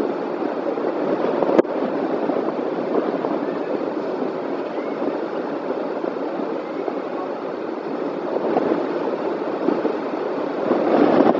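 Wind blowing over the nest-box webcam's microphone high on a building: a steady rushing noise, with a single sharp click about one and a half seconds in.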